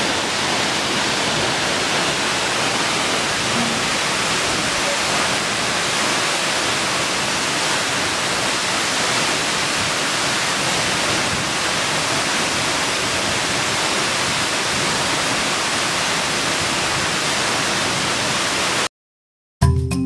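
Waterfall pouring into its plunge pool: a steady, loud rush of falling water. Near the end it cuts off abruptly, and after a brief silence marimba-like music begins.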